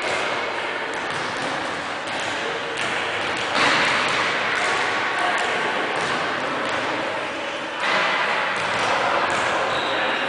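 Echoing din of a handball practice in a sports hall: handballs thudding on the court and players moving and calling, with a few sharper knocks standing out.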